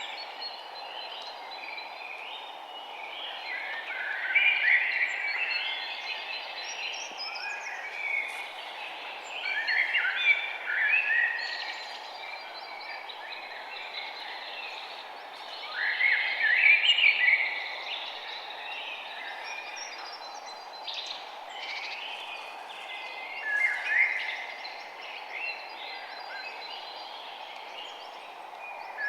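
Rainforest ambience: many birds chirping and calling in overlapping bursts that swell and fade every several seconds, over a steady background hiss.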